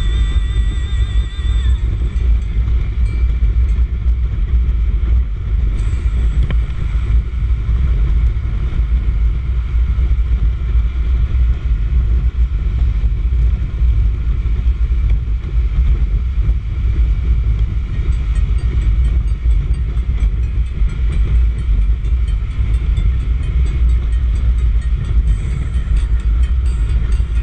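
Honda Fan motorcycle being ridden at a steady pace, its engine and road noise under a heavy, continuous wind rumble on the microphone.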